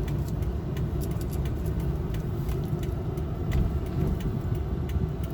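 Car driving slowly, heard from inside the cabin: a steady low rumble of engine and road noise, with faint scattered light ticks.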